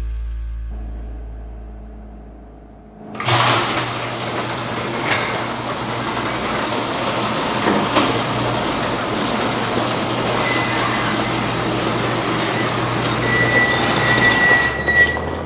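Music fades out, then a sectional overhead garage door rises on its electric opener: a steady motor hum with the rattle of the door panels and rollers and a few clunks. A thin squeal comes near the end, and the hum stops about 14 seconds in as the door reaches full open.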